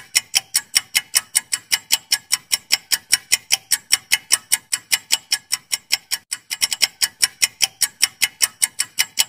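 Countdown-timer ticking sound effect: fast, even clock-like ticks, about five a second, with a brief stutter in the rhythm a little past six seconds in.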